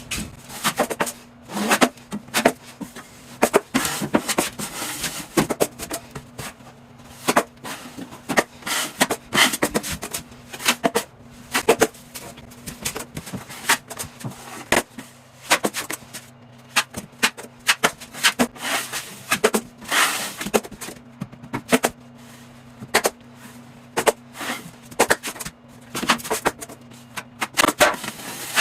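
Drywall knife spreading and scraping 45-minute quick-set joint compound over a wall patch: an irregular run of short scrapes and clicks as the blade is drawn across and lifted. A faint steady hum runs underneath.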